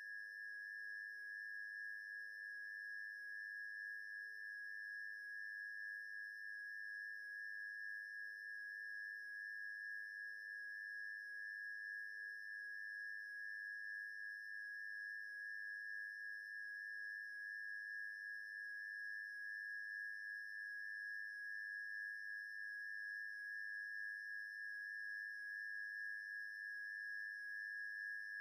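A steady high-pitched pure tone, with fainter steady tones above it and a quieter pair of lower tones that fade out about twenty seconds in.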